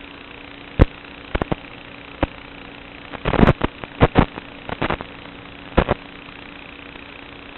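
The brushless motors of a 5-inch FPV quadcopter humming steadily, broken by short, sharp bursts at irregular intervals, bunched between about three and six seconds in. These are the oscillations that the owner traces to worn bearings in one Cobra 2204 2300KV motor.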